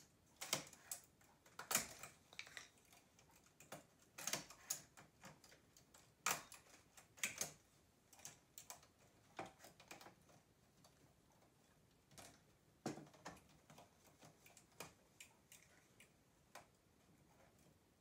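Irregular light metallic clicks of a multi-prong transfer tool against the latch needles and metal needle bed of a knitting machine, as stitches are lifted off and crossed for a cable. The clicks come in uneven clusters and grow sparser in the last few seconds.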